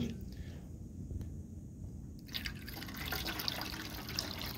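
Water poured from a plastic pyramid mould through a plastic funnel into a cube container, trickling and splashing. The pouring starts about halfway through.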